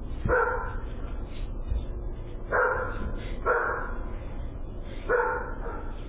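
A dog barking: four single barks spaced one to two seconds apart, heard through a doorbell camera's microphone.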